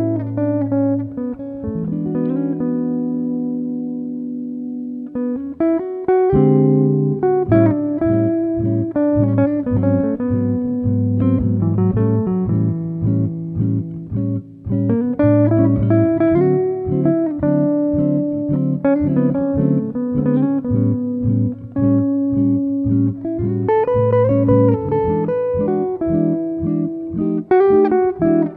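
Background music on plucked guitar. A chord rings and fades over the first few seconds, then steady picked notes start up about six seconds in and carry on.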